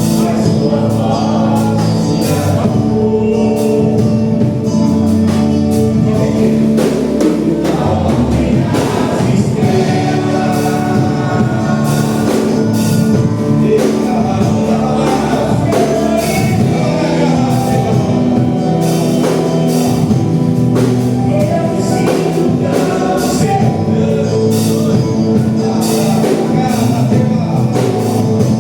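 Live gospel worship music: singers, a choir among them, over a band with a steady drum beat.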